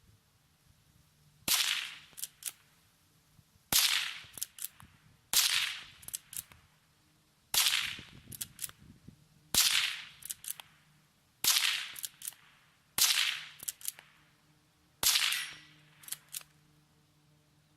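Henry lever-action .22 LR rifle firing eight shots, about one every two seconds, with the lever clicking as it is worked to chamber the next round after each shot.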